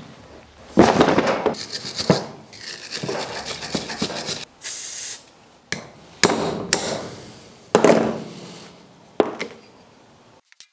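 Hand wire brush scrubbing rust off a removed brake caliper in several rough strokes, with sharp knocks of metal parts on the plastic tray. There is a short high hiss about halfway through.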